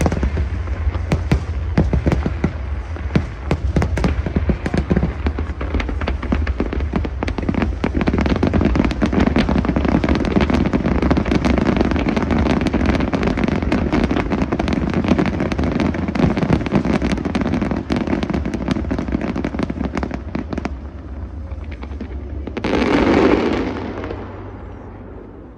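Aerial fireworks shells bursting in quick succession, a dense run of bangs and crackles that thins out after about 20 seconds. A short swell of broad noise follows a couple of seconds before the end.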